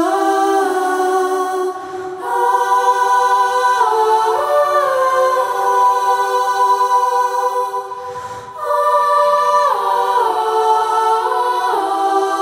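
A cappella choir singing slow, long held notes that move in steps from one chord to the next, with short pauses about two seconds in and again about eight seconds in.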